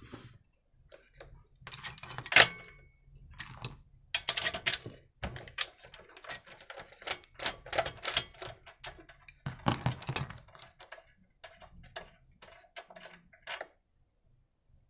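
Metallic clicks and clinks of a socket wrench working the nuts that hold the carburetor of a small petrol generator, with loose nuts and tools handled on the bench. Two sharper knocks stand out, about two seconds in and about ten seconds in, and the clicks thin out over the last few seconds.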